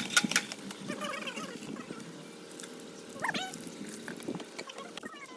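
Water splashing and running at a hand pump, with one short rising squeak about three seconds in.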